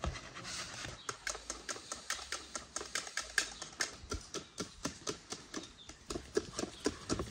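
Wire whisk beating a mixture in a bowl, clicking against the bowl's sides in a steady rhythm of about five strokes a second.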